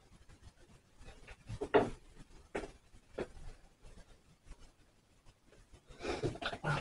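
Scissors cutting hair: a few separate snips spaced irregularly, then a short stretch of denser rustling and snipping near the end.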